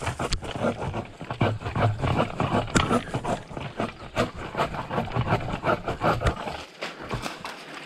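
Irregular crackling, rustling and knocking as a pole saw works at a dead tree limb among branches and leaves, stopping about seven seconds in.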